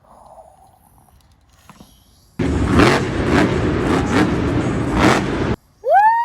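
Monster truck engine revving loudly for about three seconds, surging a few times, starting and stopping abruptly. A high held tone starts near the end.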